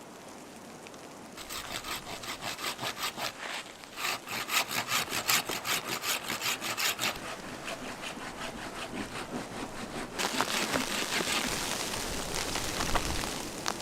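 Hand saw cutting through wood in quick, even back-and-forth strokes, about four a second and loudest in the middle. The sawing stops about ten seconds in, giving way to a steady hiss.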